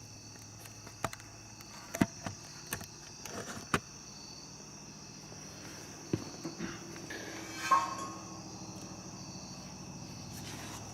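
Crickets chirping steadily, with a handful of scattered sharp knocks and clicks.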